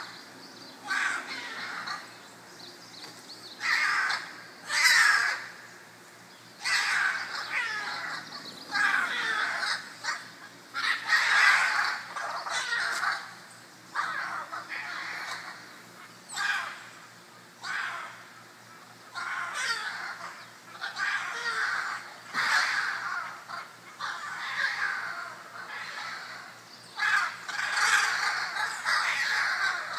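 Scarlet macaws squawking, one call after another every second or two, as several birds fuss over a perch.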